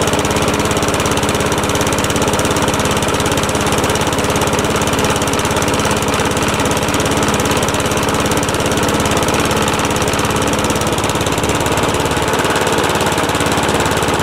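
Briggs & Stratton Classic single-cylinder four-stroke lawnmower engine running steadily, just after catching on a pull-start, with its carburettor freshly serviced. The engine holds an even, loud running note.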